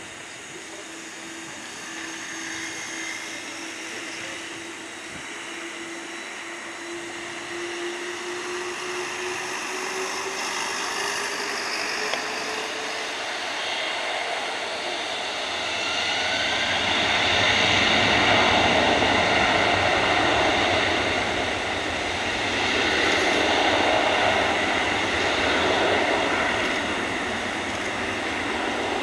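Jet engines of a Turkish Airlines twin-engine wide-body airliner spooling up on the runway for takeoff. A whine rises slowly in pitch over the first half, then the engines grow much louder into a steady, loud jet noise with high fan tones for the second half.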